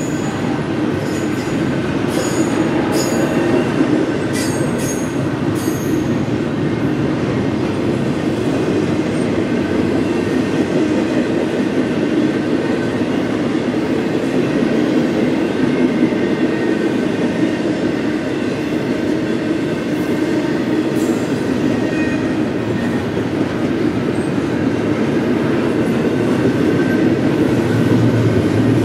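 Double-stack intermodal freight train rolling past: a steady rumble of steel wheels on the rails, with high wheel squeals and clicks mostly in the first few seconds.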